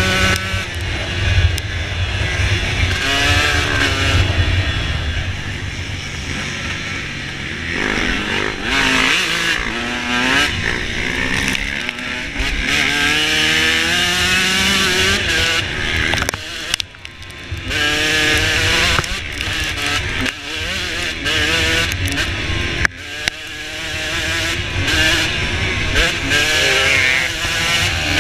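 Dirt bike engine heard from on the bike, revving up and falling back over and over as the rider accelerates, shifts and eases off, with short throttle-off dips about 17 and 23 seconds in.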